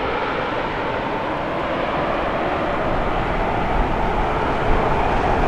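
Boeing 787-9 airliner's Rolls-Royce Trent 1000 jet engines, a steady roar with a faint whine in it, as the aircraft flies away with its gear down. The low rumble grows a little louder near the end.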